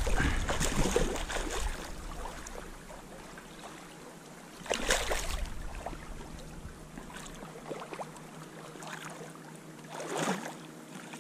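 Splashing in shallow lake water, in three short bursts about five seconds apart, as a hooked brown trout is played in to the shore.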